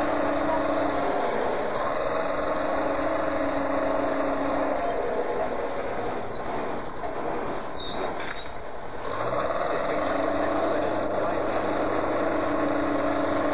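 Heavy demolition machinery running, a steady engine drone that eases off for a few seconds in the middle and then picks up again.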